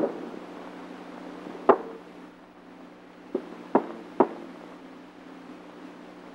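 Sharp knocks: one at the start, one about two seconds in, and three more in quick succession around four seconds in. Under them runs the steady hum and hiss of an old film soundtrack.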